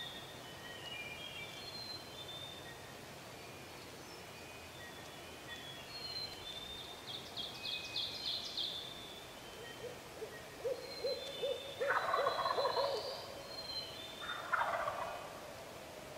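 Wild turkey gobbler gobbling twice in the last few seconds, from the roost at first light, with small songbirds singing throughout. Just before the first gobble comes a run of about eight low hoots.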